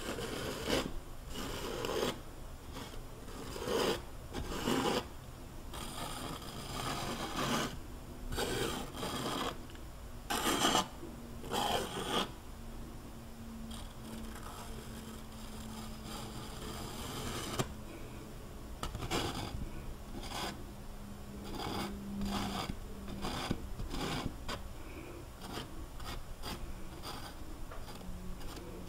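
A painting knife scraping and dragging paint across a canvas in repeated strokes, about one a second and louder for the first twelve seconds, then lighter and softer.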